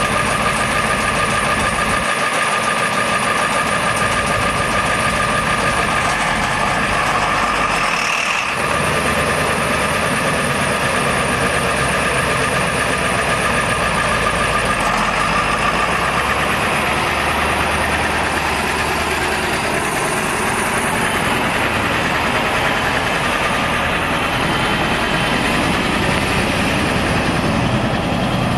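Mercedes-Benz MBE4000 12.8-litre inline-six turbo diesel of a Freightliner M2 truck running steadily at idle, with a brief dip about eight seconds in after which the low rumble shifts.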